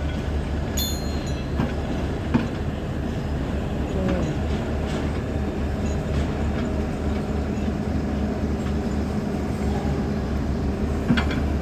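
Backhoe loader's diesel engine running with a steady low drone, with a few metal clanks and a short high squeal about a second in.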